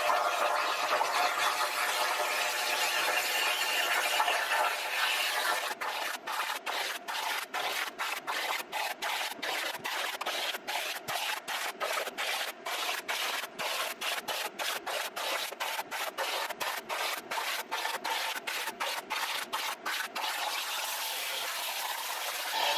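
Plasma cutter arc hissing as a Cut50L torch cuts sheet metal. About six seconds in, the hiss turns choppy, broken by short gaps about three times a second, and it runs smoothly again a couple of seconds before the end.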